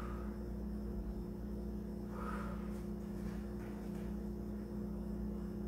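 Steady low hum of room tone, with a faint short hiss about two seconds in.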